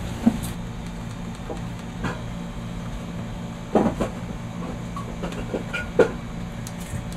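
A steady low hum, with a few sharp clicks and knocks as fingers press buttons on a stereo and instrument panel. The loudest knocks come about four and six seconds in.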